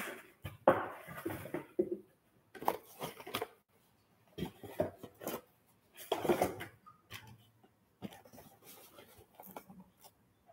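Cardboard box and paper packaging being handled and unpacked by hand: irregular rustling, scraping and light knocks in short bursts with brief pauses between.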